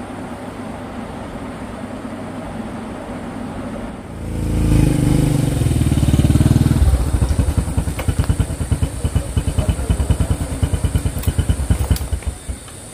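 A small engine comes in loud about four seconds in and runs with a fast, even throb, then cuts off abruptly shortly before the end.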